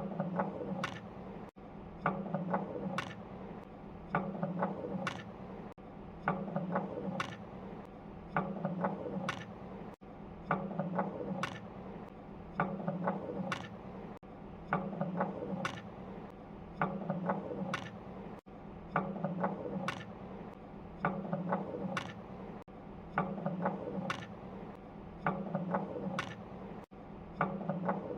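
A small mechanism clicking and whirring in a repeating cycle, about once every two seconds, with several sharp clicks over a low hum in each cycle.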